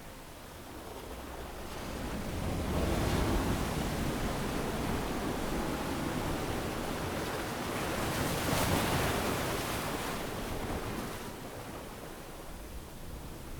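Ocean waves breaking gently on a beach: a steady wash of surf that swells about two seconds in, rises again near the middle, and recedes toward the end.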